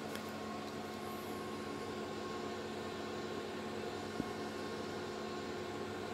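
Steady background hum and hiss with several constant tones, and one short click about four seconds in.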